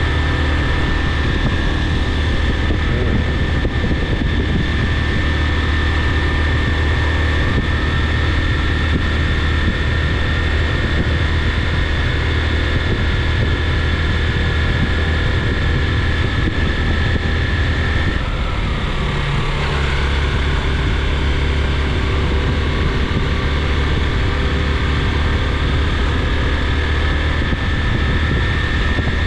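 Vehicle engine and road noise heard while driving, a steady low drone with a thin high whine above it. About two-thirds of the way through, the drone briefly dips and shifts before settling back.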